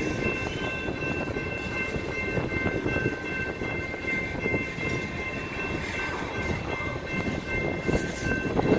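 Freight train of tank cars rolling through a grade crossing: a steady rumble and rattle of wheels and cars on the rails. Over it, the crossing's warning bell rings as a steady high tone.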